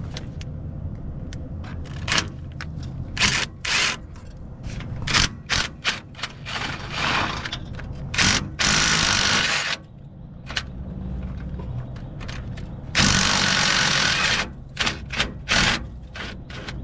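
Metal hand tools clicking and knocking on the exhaust manifold bolts and studs of a small-block Chevy 350, with two hisses of a second or so each, one about halfway through and one near the three-quarter mark.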